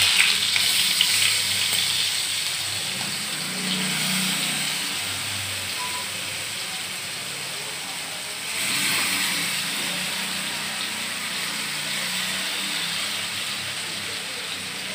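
Marinated chicken pieces sizzling as they fry in a little oil in a nonstick pan. The sizzle flares up about 8½ seconds in, as another piece is laid into the hot oil.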